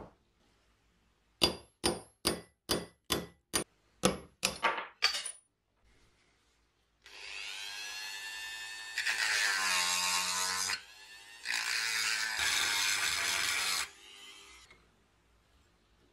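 A run of about ten sharp metallic clicks, a little under half a second apart. Then a handheld rotary tool spins up and runs at high speed against the metal frame of a hand-cranked grinder, dips briefly about halfway, runs on and winds down.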